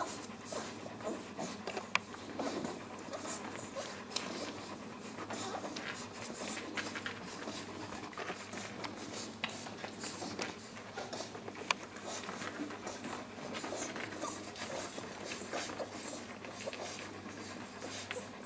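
Three-week-old Great Pyrenees puppies suckling from their mother, with many small wet clicks and faint squeaks, while the mother dog pants steadily.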